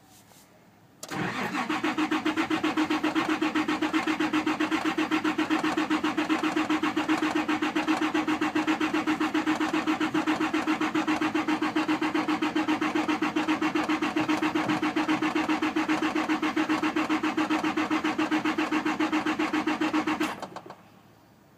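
Car engine cranking on its starter motor for nearly twenty seconds without catching: a steady starter whine under an even, rapid chugging rhythm, cut off near the end. A no-start.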